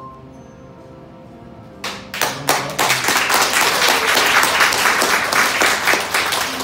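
Soft background music, then an audience breaks into applause about two seconds in, with many hands clapping together through to the end.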